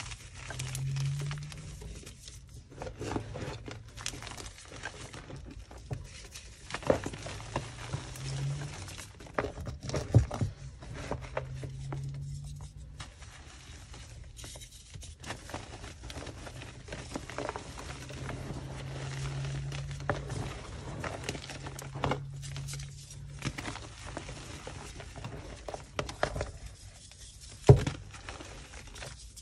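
Blocks of yellow gym chalk crushed and crumbled by hand into loose powder: a continuous dry crumbling with irregular crunches, and one sharp snap near the end.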